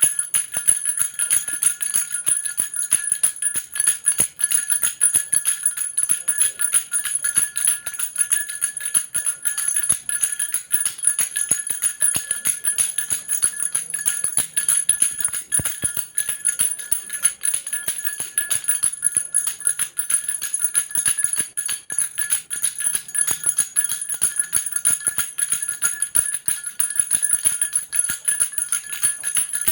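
Baby rattle shaken steadily, giving a fast, unbroken jingling with a bright ringing.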